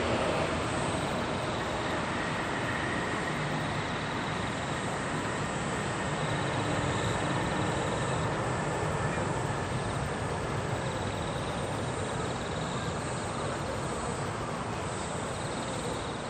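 Jet airliner's engines roaring as it rolls out down the runway after landing, a steady rush with a faint high whine, slowly fading as the aircraft moves away.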